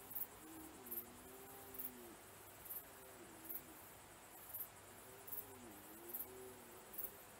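Red deer stags roaring faintly in the rut: long, moaning bellows that rise and fall, two voices overlapping near the start and again in the second half. A high insect chirp repeats about once a second throughout.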